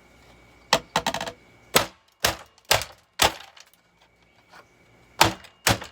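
Hammer blows on the housing of a Eureka The Boss bagged vacuum cleaner, sharp cracking impacts as the body is being cracked. Six quick strikes in the first three seconds or so, one with a brief rattle after it, then a pause and two more near the end.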